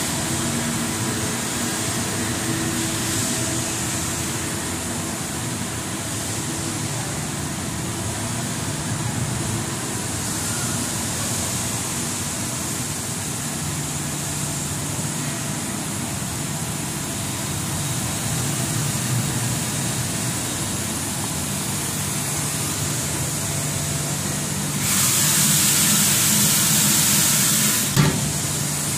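Rubber profile extrusion and vulcanization line running, a steady machine hum under a constant hiss. Near the end a louder hiss comes in for about three seconds and stops with a sharp knock.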